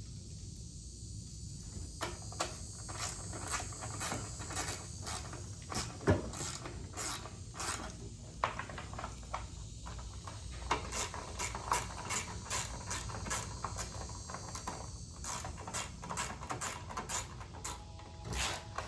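Ratchet wrench clicking in steady runs of strokes, about two clicks a second with short pauses, as a fastener on the lawnmower is screwed back down. A single sharp knock about six seconds in.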